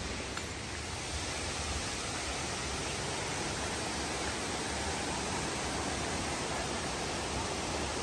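Steady rushing of a mountain creek tumbling over boulders, growing slightly louder about a second in.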